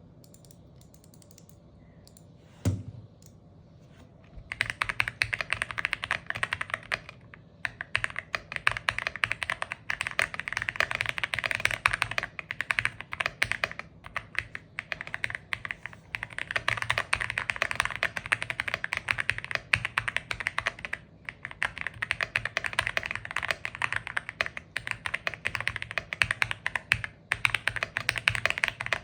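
Fast typing on an Epomaker Aula F81 gasket-mounted mechanical keyboard with Ice Crystal switches and GDA-profile keycaps: a dense run of key clacks with a few short pauses. A single knock comes a few seconds before the typing begins.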